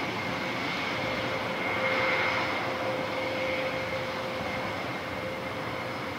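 An Airbus A400M Atlas's four TP400 turboprop engines running at taxi power as it rolls down the runway: a steady propeller and engine drone with a high whine held on one pitch. It swells slightly about two seconds in.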